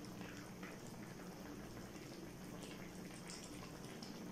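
Creamy chicken macaroni soup simmering faintly in a pan, with a low steady hum underneath and a few soft ticks.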